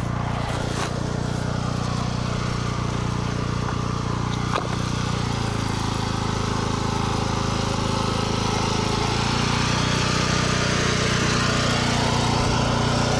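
Portable petrol generator engine running steadily, its pitch sagging for a few seconds in the middle before picking back up. A single sharp knock about four and a half seconds in.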